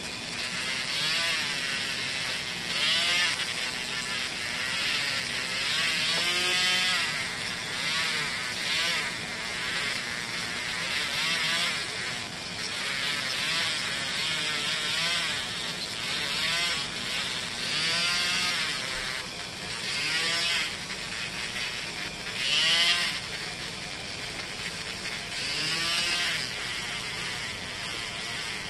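Handheld rotary tool running with a polishing wheel on small brass gear parts: a steady motor hum, with a gritty rubbing hiss that swells and fades every second or two and a whine that rises and falls in pitch as the wheel is pressed on and eased off.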